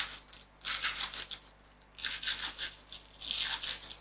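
Kitchen knife chopping spring onions on a wooden chopping board, the blade crunching through the stalks and tapping the board in three runs of quick strokes.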